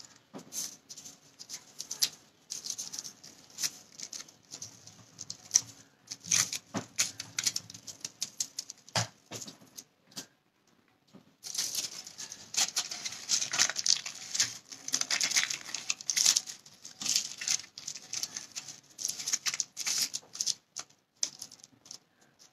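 Aluminium foil crinkling and crackling as it is folded and pressed by hand into a small packet, in quick irregular crackles with a short pause about ten seconds in.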